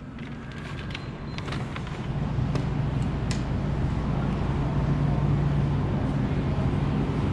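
Supermarket interior ambience: a steady low hum that grows louder about two seconds in and then holds, with a few light clicks in the first few seconds.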